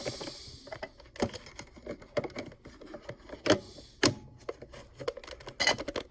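Plastic clicks and knocks of a rechargeable battery pack being handled and fitted into a Dymo label maker's battery compartment, a few scattered taps a second or so apart with light rustling between.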